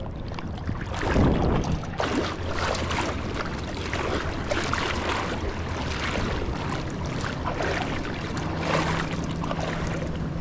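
River water splashing and sloshing as people wade, with wind noise on the microphone.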